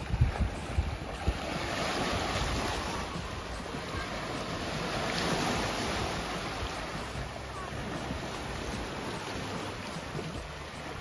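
Small sea waves washing and breaking against red sandstone rock ledges, swelling and easing off in turn. There are a few low thumps in the first second or so, typical of wind buffeting the microphone.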